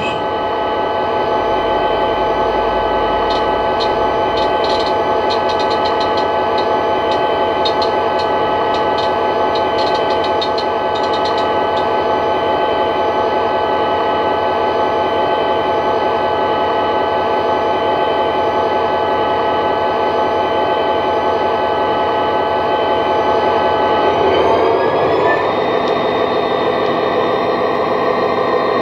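Model Class 59 locomotive's DCC sound decoder playing a recorded EMD 16-645 two-stroke diesel, through the model's small speaker. It idles steadily, then about four seconds before the end the engine note rises as it revs up and the model pulls away.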